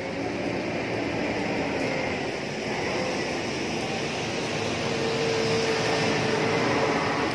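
Steady rushing background noise, with a faint hum held for about two seconds near the end.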